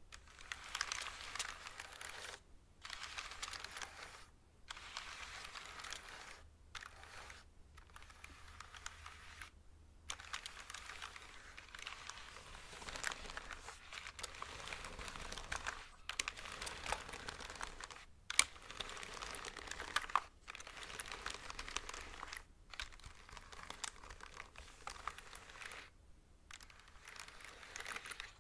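Fingers moving fast over a mechanical keyboard: rapid runs of crackly clicking and rustling on the keys, broken by short pauses every few seconds.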